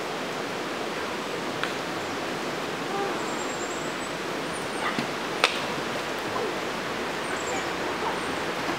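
Shallow river running over rocks, a steady rushing. A few sharp clicks stand out above it, the loudest about five and a half seconds in.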